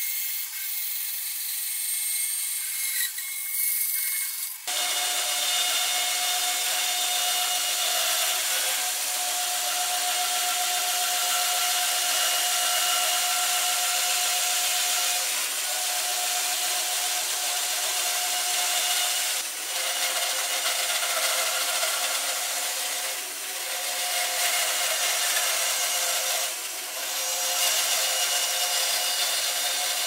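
Benchtop bandsaw running, its blade cutting through a thick wooden block: a steady motor whine under the rasp of the cut. The sound fills out about four and a half seconds in and dips briefly a few times later on.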